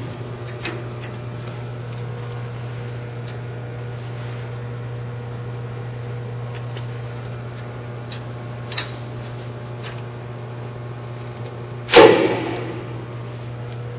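Metal toggle latch with red grips being worked on a metal cabinet panel: a few light metallic clicks, then about twelve seconds in a loud clank with brief ringing as the latch is snapped shut, over a steady low hum.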